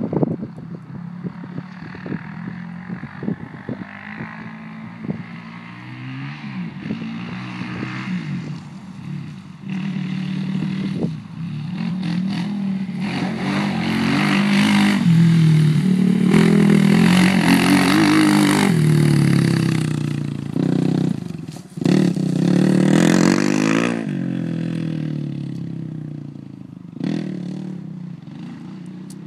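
Suzuki LTR 450 quad's single-cylinder four-stroke engine, first running low with irregular clicking, then accelerating hard, its loudest about halfway through, dropping off suddenly and revving once more before settling. This is the hard acceleration under which the owner reports a weird noise from the machine.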